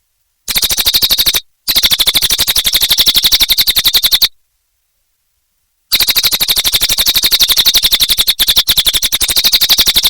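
Cililin (crested jay) giving its loud rattling call, a rapid run of harsh clicks at about a dozen a second. It comes in three bursts: a short one about half a second in, a longer one to about four seconds in, and a long one from about six seconds on, with dead silence between them.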